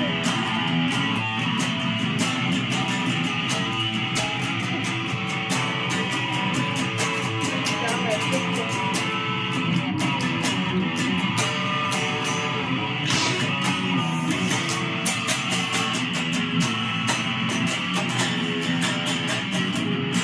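Electric guitar playing a rock riff inside full-band rock music with a steady beat.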